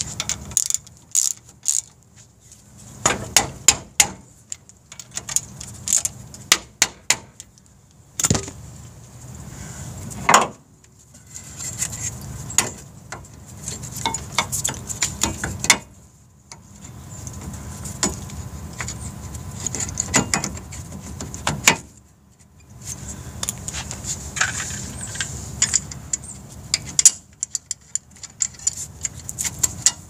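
Hand socket ratchet working the caliper bracket bolts on a GMC Envoy's front brake, with runs of clicks, then the metal clatter and sharp knocks of the brake caliper being handled and set over the rotor, between stretches of rustling.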